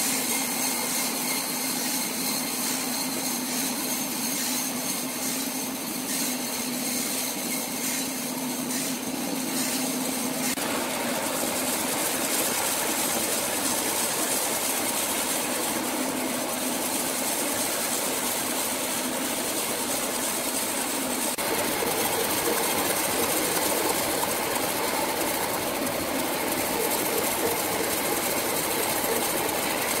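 Sawmill machinery running: a steady mechanical din that changes in character about ten seconds in and again about twenty-one seconds in.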